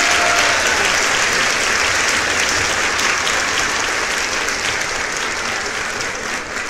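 Crowd applauding: dense, steady clapping that slowly fades.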